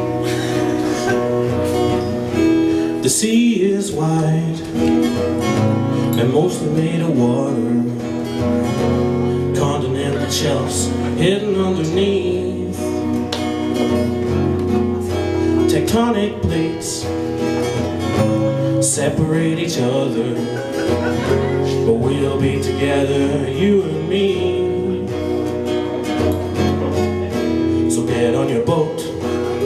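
Two acoustic guitars played live, strummed and picked, with a man singing over them at times.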